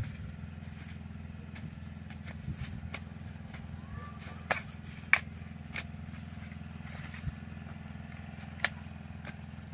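A garden tool digging planting holes in the soil: scattered sharp strikes, a few of them louder, the loudest about five seconds in. A steady low hum runs underneath.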